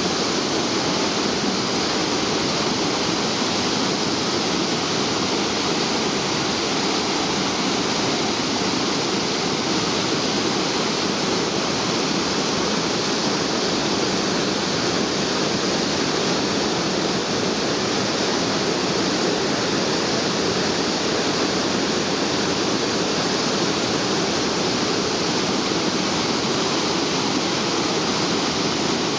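Minoo Falls, a waterfall, pouring in a steady, loud rush of falling water with no change.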